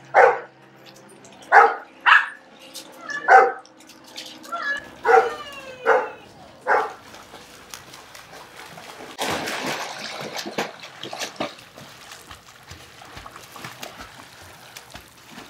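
A dog barks repeatedly, about seven short barks over the first seven seconds. From about nine seconds in, water splashes in a swimming pool as a dog paddles with a person beside it.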